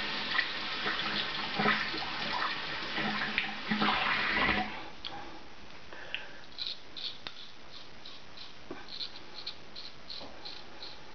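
Tap water running into a sink for about the first four and a half seconds, cutting off. Then a Gold Dollar 66 straight razor scrapes through lathered stubble in quick short strokes, about three a second.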